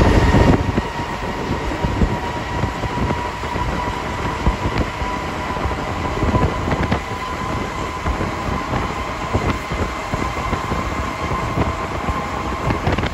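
Alstom NS-16 rubber-tyred metro train running at speed through a tunnel, heard from inside the car: a steady rumble and rush of running noise with a steady whine, and occasional knocks.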